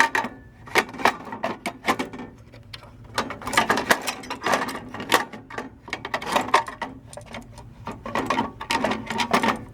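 Irregular clicking, tapping and scraping as a replacement clock-driven light timer mechanism is handled and worked into its housing, onto the mounting tracks at the back.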